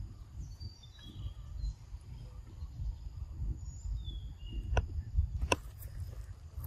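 Forest ambience: faint short bird chirps high above a steady low rumble, with two sharp clicks about five seconds in.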